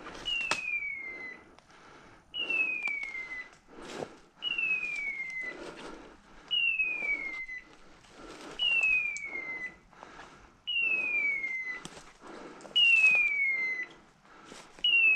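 Electronic beeper collar on a hunting dog sounding a falling whistle, a bit over a second long, at a steady pace of about one every two seconds. Under it is the rustle and crunch of footsteps through dry leaves and brush.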